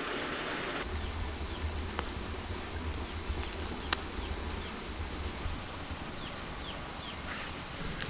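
Outdoor ambience: a low wind rumble on the microphone for the first half, a run of short, high chirps from small creatures, and a couple of faint clicks.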